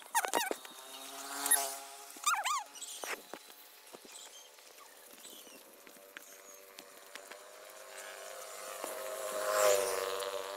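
Motorcycle engines passing along the road: one goes by about a second and a half in, and another builds up and passes close near the end, the loudest sound here. A couple of short warbling calls are heard in the first few seconds.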